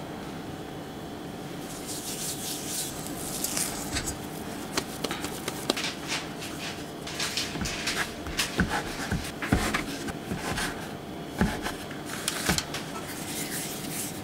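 Hand work on brown-sugar manjū dough: a silicone spatula scraping a stainless steel bowl, then the dough rubbed and rolled on a plastic mat and cut with a plastic scraper. Short rubbing swishes and several sharp taps, most of them in the second half, over a faint steady hum.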